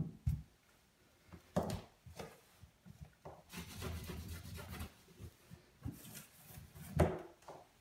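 A cloth rubbing and wiping over an acrylic bathtub surface, clearing grinding dust from a ground-out crack, with a few short knocks against the tub, the loudest near the end.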